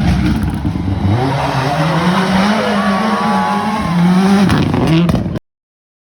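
Rally car engine revving hard under acceleration, its pitch climbing and dropping back a few times as it goes through the gears. It cuts off suddenly about five seconds in.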